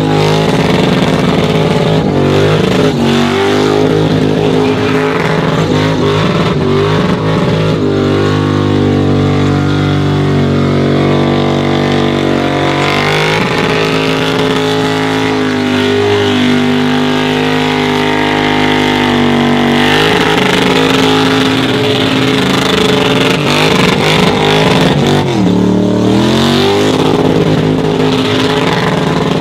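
A car engine held at high revs through a tyre-smoking burnout, running hard with small shifts in pitch. About 25 seconds in, the revs drop and climb straight back up.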